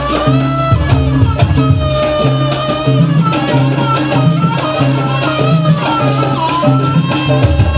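Live East Javanese jaranan ensemble music accompanying the barong dance: a wavering lead melody over quick, dense percussion strokes. A low steady bass drops out about a second in and comes back near the end.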